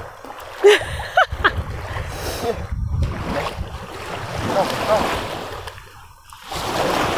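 Short distant shouts or calls from people, over steady wind noise on the microphone and water; the rushing noise swells, dips briefly about six seconds in, then returns.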